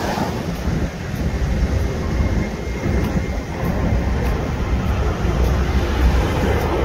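Steady low rumble of traffic and road noise from driving along a city road, with vehicles passing close by.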